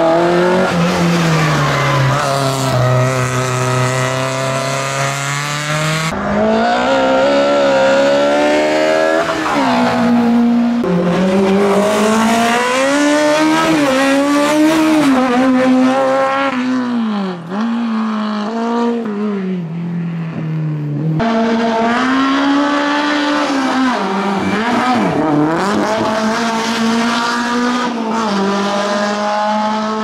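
Fiat 127 Sport competition cars' small four-cylinder engines revving hard, the pitch climbing through each gear and dropping at the shifts and lifts. There are several separate runs, one after another.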